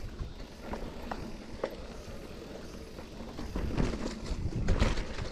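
Mountain bike rolling down a rough dirt and rock trail: tyres crunching over loose ground, with the bike clattering and rattling over bumps. The clatter grows louder and busier about two-thirds of the way through, as the trail gets rockier.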